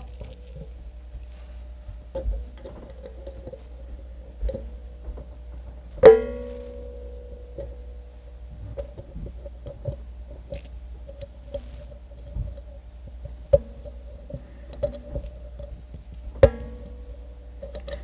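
Brass pin-tumbler padlock being picked with a floating spring tension wrench, close-miked: faint scraping and ticking of the pick on the pins, with two sharp clicks, about six seconds in and near the end, as two pins set. Each click leaves the spring wrench ringing like a plucked string for a moment.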